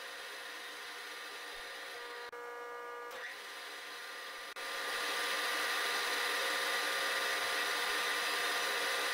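Vertical milling machine spindle running, drilling a small 6-32 tap-drill hole in a tool-steel cutter body: a steady machine hum and whine. It drops out briefly twice, about two seconds in and halfway through, and is louder after the second dropout.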